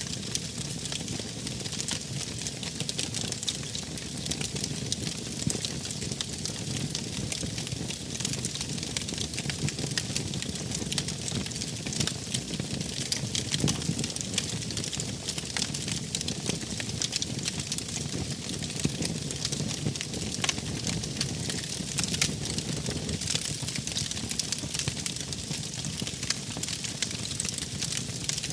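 Wood fire burning, with a constant stream of small crackles and pops over a steady low rumble.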